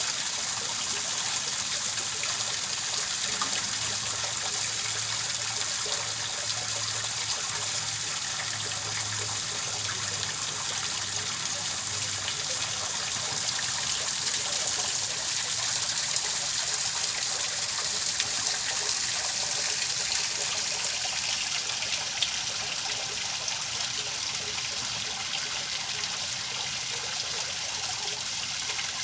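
Steady running, trickling water played as a continuous sleep sound, even and unbroken throughout.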